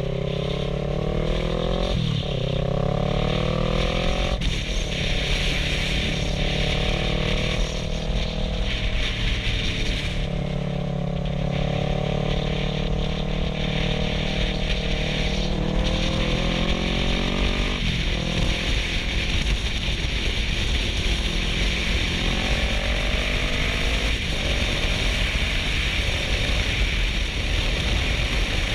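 Kawasaki Versys 650's parallel-twin engine pulling through the gears. The engine note climbs in pitch in each gear and drops back at upshifts about 2 and 4 seconds in, and again near 18 and 24 seconds. A steady rush of wind noise on the microphone runs under it.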